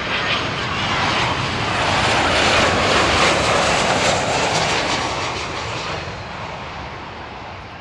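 Airliner on final approach passing low overhead: the engine roar swells to a peak about three seconds in, then fades away.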